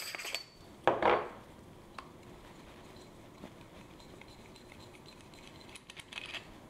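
Metal parts of an all-metal CafeSing Grizz hand coffee grinder clinking as it is taken apart by hand. There is one sharp clack about a second in, a few faint clicks after it, and a cluster of light clicks near the end.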